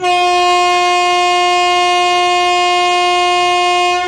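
Indian Railways locomotive air horn sounding one long, steady, loud blast that cuts off near the end.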